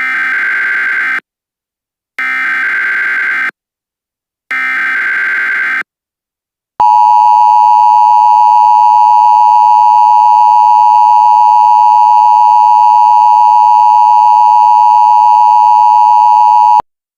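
Emergency Alert System alert opening: three short SAME header data bursts about a second apart, then a loud steady attention tone held for about ten seconds that cuts off abruptly.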